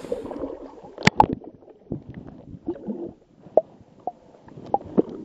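Muffled underwater sound: a low water gurgle broken by several sharp knocks and clicks, the two loudest about a second in.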